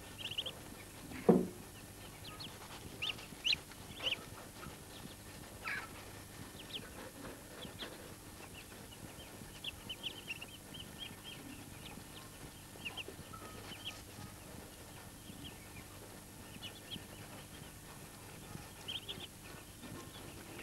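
Muscovy ducklings peeping: short, high chirps scattered through, with one loud, brief sound about a second in.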